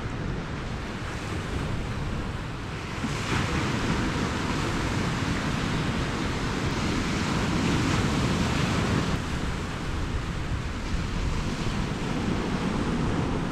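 Sea waves washing against rocks, with wind on the microphone. The noise swells louder for several seconds in the middle.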